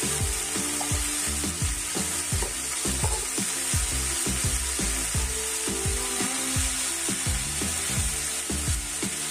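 Chopped vegetables sizzling in hot oil in a kadai, a steady high hiss, under background music with held notes and a beat.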